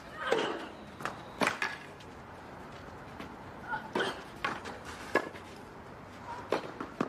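Tennis rally on a clay court: about nine sharp knocks of racket strings hitting the ball and the ball bouncing, with a lull around two to three seconds in.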